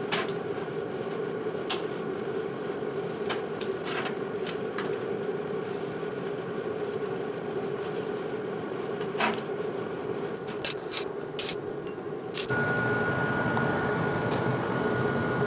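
A forge running with a steady drone, with scattered light clicks. About 12.5 s in the drone grows a little louder and a thin steady whistle joins it.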